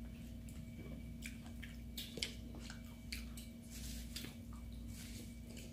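Quiet mukbang eating sounds: chewing, with scattered small clicks of metal spoon and fork on paper plates, over a faint steady hum.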